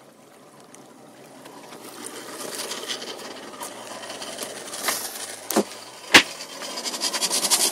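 Camera handling noise: a few sharp knocks and bumps, the loudest about six seconds in, over a hiss that grows steadily louder.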